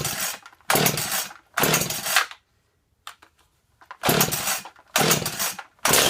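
Husqvarna Rancher 55 chainsaw being pull-started on choke: six quick yanks of the starter cord in two sets of three, the engine cranking with a rapid chuffing on each pull but not catching.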